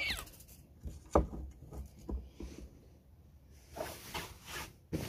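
A flashlight is pulled out from under an eagle-owl's talons across a bamboo slat mat, making knocking and rubbing sounds. A sharp knock comes about a second in, then a few lighter knocks, and a rustling near the end.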